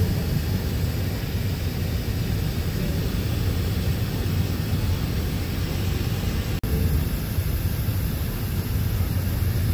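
Steady low rumble of airliner cabin noise inside a Boeing 767-400ER on the ground, with the sound cutting out for an instant about two-thirds of the way through.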